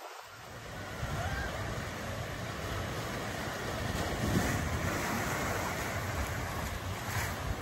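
Water gushing out of water-slide outlets and splashing into a pool: a steady rushing noise with a low rumble underneath, swelling slightly about a second in.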